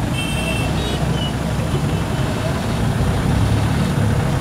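Steady engine and road rumble heard from inside a vehicle crawling through heavy city traffic, with a brief high thin tone in the first second.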